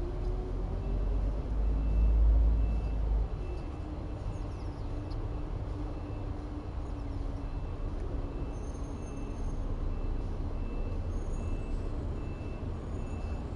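Diesel garbage truck engine running with a low rumble that swells briefly about two seconds in, while its backup alarm beeps steadily in even, repeated beeps.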